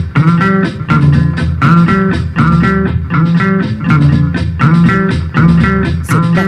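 Instrumental music: a short plucked-string phrase repeating about every three-quarters of a second over a steady bass line.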